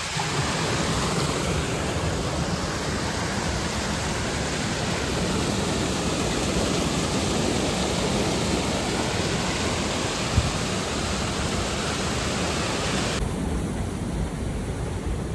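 Steady rushing roar of a waterfall, with a faint knock about ten seconds in; near the end the hiss in the higher part of the sound drops away suddenly, leaving a duller rush.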